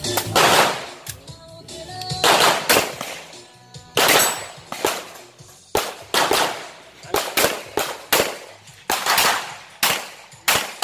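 Glock 41 .45 ACP pistol firing a string of roughly fifteen shots outdoors, most of them in quick pairs about a third to half a second apart, with short pauses between pairs.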